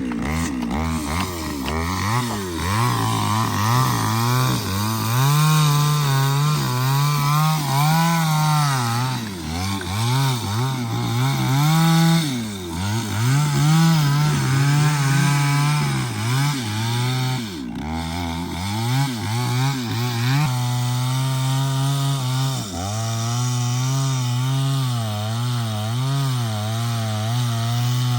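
Chainsaw cutting into hard wood. The engine note repeatedly sags and picks back up as the chain is loaded and eased, then holds steadier for the last third.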